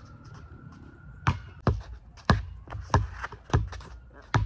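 Basketball dribbled on an outdoor hard court: a run of sharp bounces, about one every 0.6 s, starting about a second in. A faint siren holds a steady tone in the background through the first second and a half.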